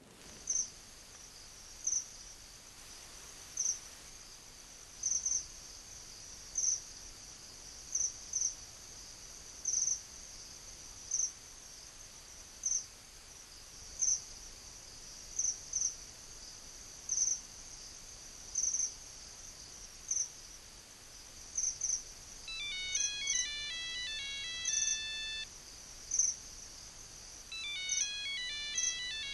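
Single cricket chirps at slow, uneven intervals over a faint steady hiss. About 22 seconds in, a mobile phone ringtone melody of quick electronic notes plays for about three seconds, then starts again near the end.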